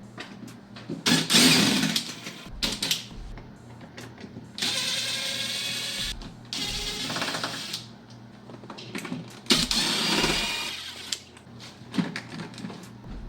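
Interior door panel of a Jeep Cherokee XJ being taken off: a run of clicks and several loud scraping, rustling stretches of a second or two as screws come out and the plastic panel is worked loose.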